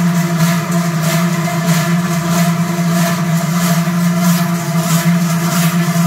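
Many large cowbells (Trychlen) swung in step by a marching procession, clanging in a regular beat about twice a second over a steady low drone.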